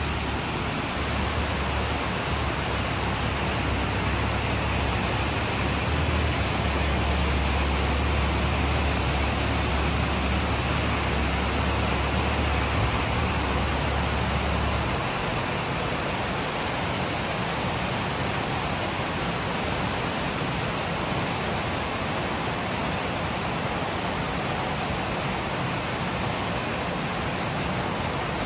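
Rain falling steadily, an even hiss. A low rumble runs under it and stops about halfway through.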